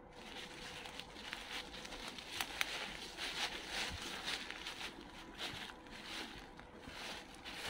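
Footsteps through dry fallen leaves and undergrowth, a soft rustle at each step about twice a second, with a few sharp twig snaps.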